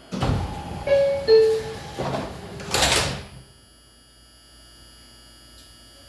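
R142 subway car's door-closing chime, two short tones with the second lower, followed about two seconds later by the doors sliding shut with a loud rush. The car then settles to a quiet low hum, its air conditioning off.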